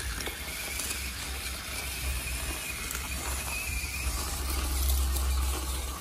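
Small battery-powered electric motor and plastic gearbox of an RC toy truck whirring steadily as the truck drives over sand.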